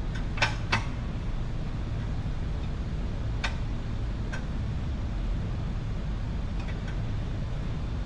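A handful of sharp clicks over a steady low rumble: two close together just under a second in, two more at about three and a half and four and a half seconds, and two faint ones near the end.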